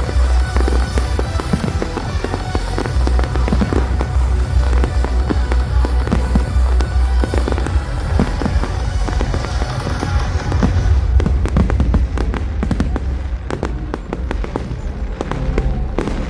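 Fireworks bursting and crackling over loud show music with a heavy bass; the crackling gets denser in the second half.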